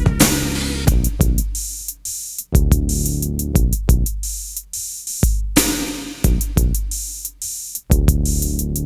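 Instrumental break of an old-school hip hop track: a drum-machine beat with deep bass drum notes that hang on for about a second each under steady hi-hat ticks, with no rapping.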